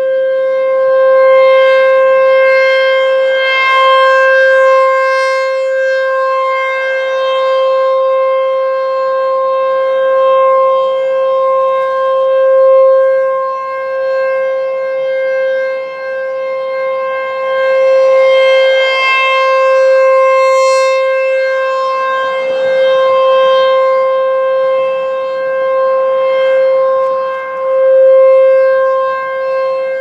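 ASC T-128 AC/DC rotating outdoor warning siren sounding its steady alert: one unbroken tone of about 531 Hz with its overtones. It grows brighter and louder twice, about 16 seconds apart, as the turning horn sweeps past.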